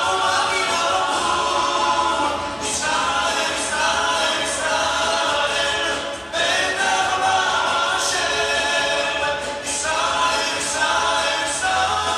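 A choir singing a cappella, in phrases of three to four seconds with short breaks between them.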